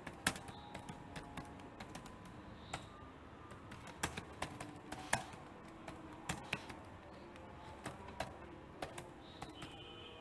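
Faint, irregular clicking of keys being typed on a computer keyboard, a few keystrokes a second with short pauses.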